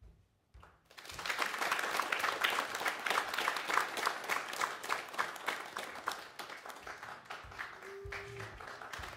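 Audience applause: near silence, then many people clapping together, starting about a second in and easing off slightly toward the end.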